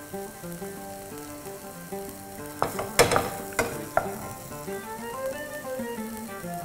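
Soft background music of held melodic notes, with a short cluster of wet slaps and scrapes from a wooden spatula dropping thick potato-vegetable filling into an aluminium tray, loudest about three seconds in.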